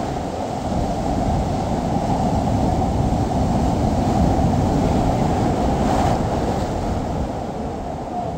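Wind buffeting the microphone in a steady rumble, mixed with the wash of the sea.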